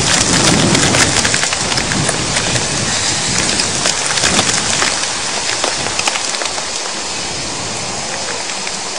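Heavy rain and hail in a thunderstorm, with a dense hiss and many sharp hailstone ticks that thin out after about five seconds. The low rumble of thunder dies away in the first couple of seconds.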